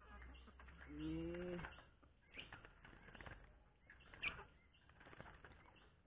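Faint clicks and taps of hands working a wire bird cage, with a short low call about a second in and a brief high chirp a little after four seconds in.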